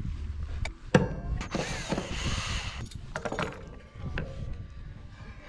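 Poplar face-frame strips being handled on a plywood workbench: a sharp knock about a second in, then about a second of wood scraping and sliding, followed by lighter knocks as the pieces are set in place.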